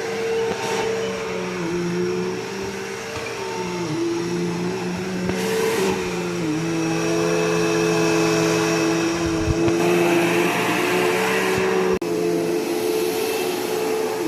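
Bissell PowerForce Bagless Turbo 6596 vacuum cleaner running on its 12-amp motor: a steady motor whine whose pitch dips now and then, with two longer spells of louder rushing air, one about five seconds in and one around ten seconds in. The sound drops out for an instant near the end.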